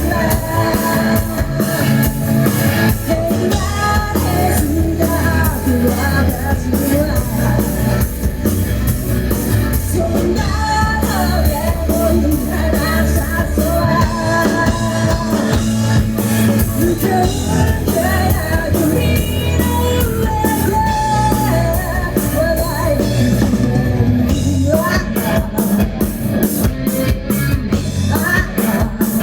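Rock band playing live, with a singer's voice over electric guitar, bass and drums; near the end the vocal drops out and the drums hit in a fast, even pattern.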